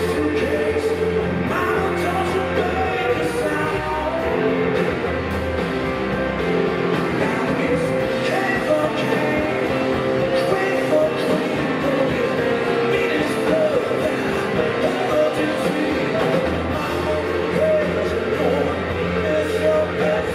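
Live blues-rock band playing, with electric guitars, bass and drums, and a man singing into the microphone.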